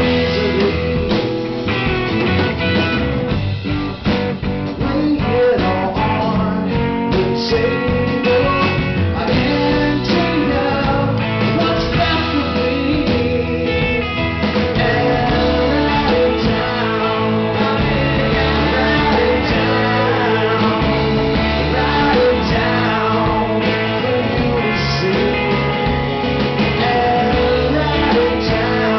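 Live rock band playing: a male lead voice singing over strummed acoustic guitar, electric guitar, electric bass and drums.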